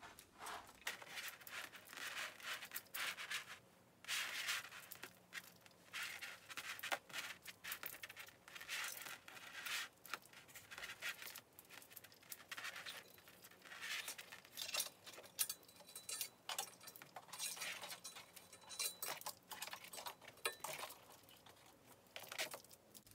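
A string of Christmas mini lights being wound in a figure-eight around a coat hanger: the wire and small plastic bulbs rustle and click faintly against each other and the hanger in irregular short bursts.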